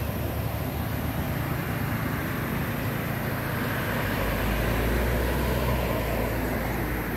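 Steady outdoor background noise with a low engine rumble from passing motor traffic, swelling about four seconds in and easing off near the end.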